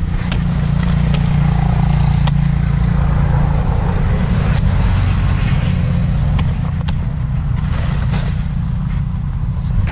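Motor vehicle engine running close by, a steady low rumble with a few sharp clicks over it.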